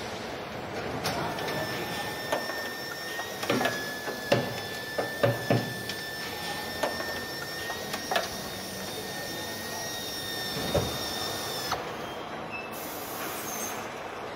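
Car assembly line noise: a steady machine hum with a thin high whine, broken by sharp clicks and knocks of tools and parts, several close together about four to five seconds in. The whine stops and the sound changes about twelve seconds in.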